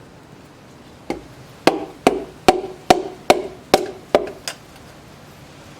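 Light taps of a hammer handle driving the last piston down through a ring compressor into the cylinder bore: about nine knocks, two to three a second, each with a short ring. The piston slides in easily, the sign that the rings are going in without catching.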